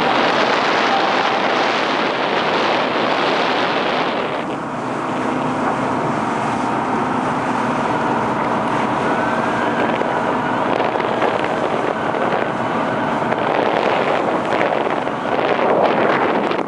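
Wind buffeting the microphone on the open deck of a passenger ferry under way, over the steady rush of water and the ferry's engine. The wind is strongest in the first few seconds.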